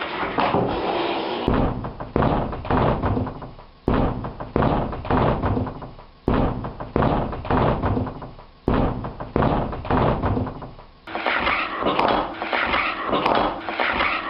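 A door slammed shut several times in a row, each bang sudden and dying away over a second or so. About eleven seconds in, a different, busier sound takes over.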